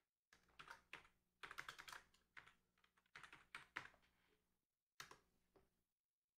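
Faint typing on a computer keyboard: runs of quick key clicks with short pauses between them, and one more short group of clicks about five seconds in.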